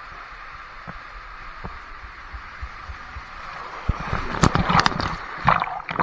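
Water rushing through an enclosed tube waterslide, with a few soft bumps of the rider against the tube. About four seconds in, a burst of loud splashing as the rider shoots out into the landing pool.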